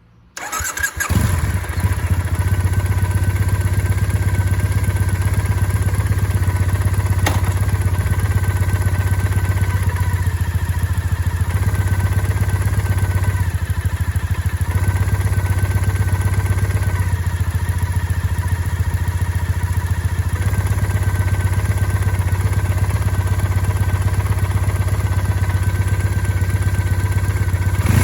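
2008 Triumph Bonneville air-cooled parallel-twin idling steadily, with a thin high whine that drops in and out over the engine note. This is the strange idle noise that the owner says goes away once in gear with the clutch partly released, and which the Triumph service called normal.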